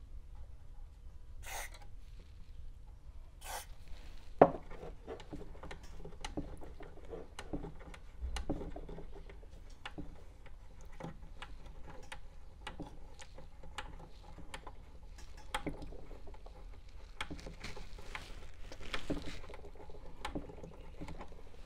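Two short hisses of contact cleaner sprayed into the amp's potentiometers, a sharp click about four seconds in, then the control knobs being twisted back and forth to work the cleaner through the pots: many light clicks and rubbing from the knobs and shafts.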